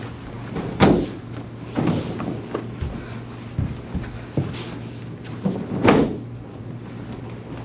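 Bodies hitting padded vinyl gym mats as students roll and land: two heavy thuds, about a second in and about six seconds in, with lighter knocks and bumps between. A steady low hum underneath.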